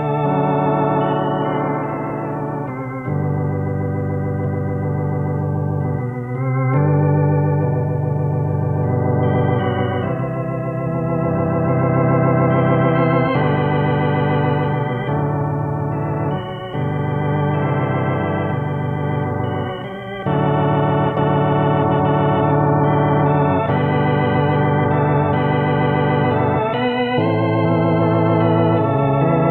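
Hammond organ playing a gospel hymn: full sustained chords over deep bass notes, changing every second or two, with a wavering vibrato in the tone. The organ is close-miked.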